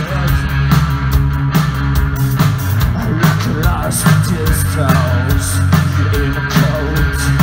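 Live rock band playing: distorted electric guitars, bass and a drum kit keeping a steady beat, heard from within the crowd.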